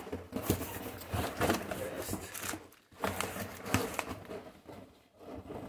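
Cardboard box and plastic wrapping being handled as a box is opened: irregular rustling, scraping and light knocks, pausing briefly twice.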